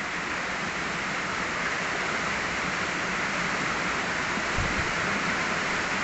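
Steady rushing of a waterfall and fast-flowing mountain stream, with a brief low thump a little after the middle.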